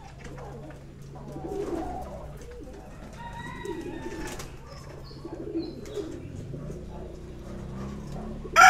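Domestic pigeons cooing several times, low-pitched. Just before the end a rooster starts a loud crow.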